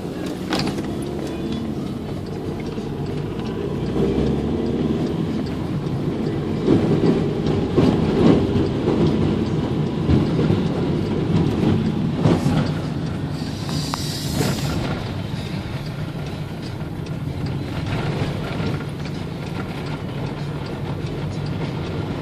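Inside a bus driving over a rough, bumpy road: steady engine and road noise with rattling and jolts that are heaviest in the middle stretch. A brief hiss comes about fourteen seconds in.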